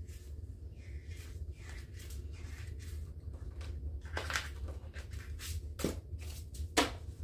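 Translucent plastic cash envelopes rustling and crinkling as they are shuffled and sorted by hand, in a run of short rustles that grow louder from about four seconds in. Two sharp taps come near the end, the second the loudest, as the stack meets the tabletop.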